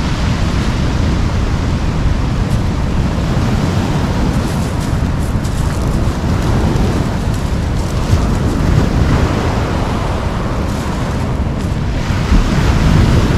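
Ocean surf breaking and washing over a pebble beach, with wind buffeting the microphone as a steady low rumble.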